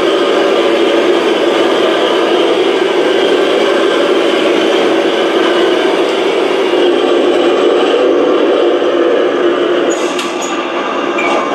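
Radio-controlled model T-34 tank driving across a hardwood floor, its drive motors and tracks running with a loud, steady mechanical noise.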